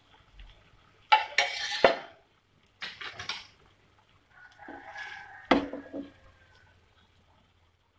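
A spatula scraping and knocking against a nonstick frying pan as a rolled omelette is pushed and turned, in three short bouts about a second, three seconds and five seconds in. The last bout has a brief squeak and a sharp knock.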